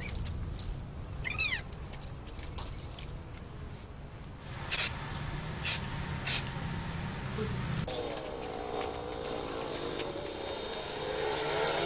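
Three short hisses from an aerosol spray-paint can, about half a second to a second apart, around the middle, laying a first coat of paint on a motorcycle wheel hub. A cat meows about a second in.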